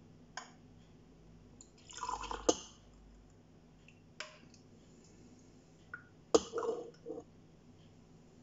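Metal ladle knocking against a stainless steel pot while liquid panna cotta cream is scooped up and dripped and poured into glasses. There are a few single clinks and two busier bursts of sloshing and pouring, each with a sharp knock.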